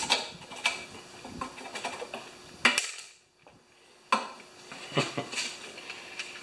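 A handful of sharp metallic clinks and knocks from a tool and small parts being handled against a lawnmower engine, with a brief lull about three seconds in.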